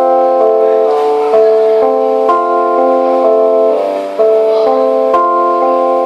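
Live band playing a slow instrumental: held, sustained chords that change every second or so, with light percussive ticks scattered over them.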